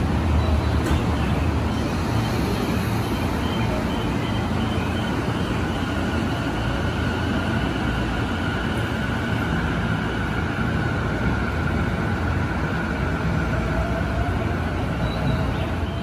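Keiyo Line E233-5000 series electric train pulling out: steady running and rolling noise, with the traction inverter's whine slowly rising in pitch as the train accelerates.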